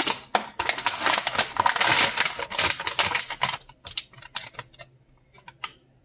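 Large shiny foil snack bag crinkling and crackling as it is handled and turned: a dense crackle for about three and a half seconds, then scattered, fainter crinkles.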